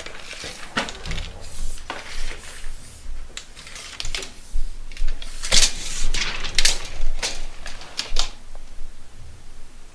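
Steel tape measure being pulled out and handled to check a measurement: irregular clicks and rattles, the loudest cluster in the second half.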